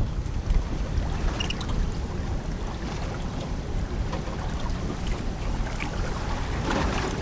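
Wind blowing across the microphone, with water lapping against the hull of a small boat.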